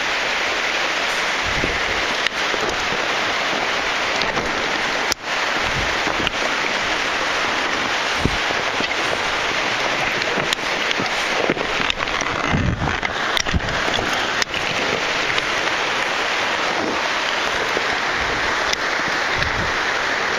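Steady rushing of falling water in a cave shaft, with occasional sharp knocks and clicks of rope and metal karabiners close to the camera, most at about 5, 8 and 12 to 14 seconds in.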